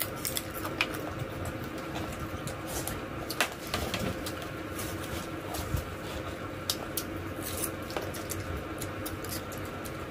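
Close-up eating sounds: mouth chewing and smacking on deep-fried chicken, with irregular sharp clicks and crunches as it is bitten and picked apart by hand, over a faint steady hum.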